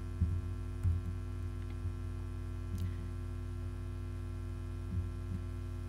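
Steady electrical mains hum from the microphone and sound system, with a few soft low thumps.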